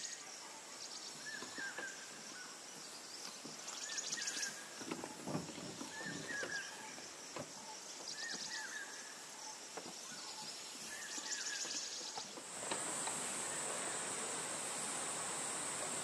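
Outdoor ambience: a bird repeats a short arched call every two seconds or so over a steady high insect drone, with a few soft rustles in the middle. About twelve seconds in, the insect drone becomes louder and fuller.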